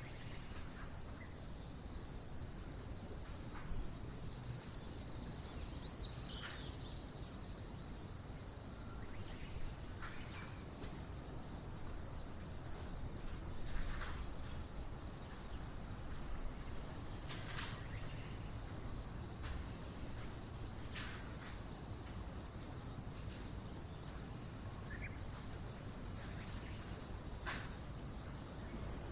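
Insect chorus of crickets: a dense, steady, high-pitched trilling that never lets up, with faint short chirps scattered through it.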